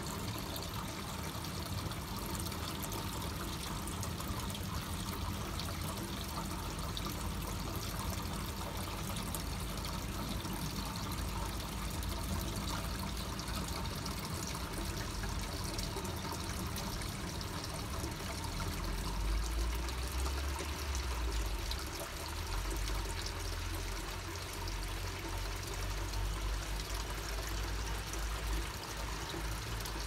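Water trickling and pouring steadily. About two-thirds of the way through, a low rumble comes and goes beneath it.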